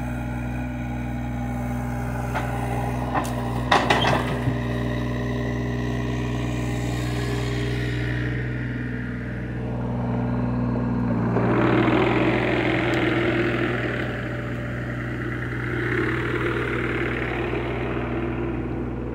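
John Deere mini excavator's diesel engine running steadily, with a few sharp knocks and cracks about four seconds in. The engine works harder for a few seconds past the middle and again briefly near the end, as the machine is put under load.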